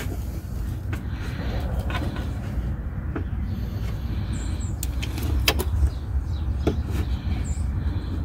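A few scattered light knocks and clicks as the plywood bed platform and its wooden legs are handled, over a steady low rumble.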